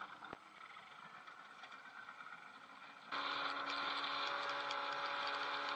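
Small open boat's outboard motor running under way, with wind and water noise. The first three seconds are a quieter stretch of wind and water with a single click. About three seconds in, the motor's steady hum comes in suddenly louder.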